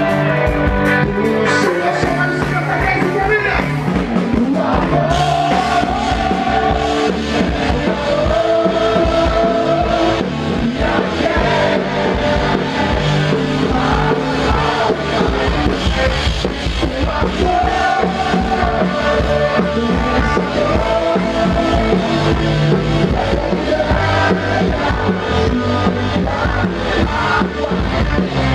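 Live rock band playing a song, at a loud and even level throughout.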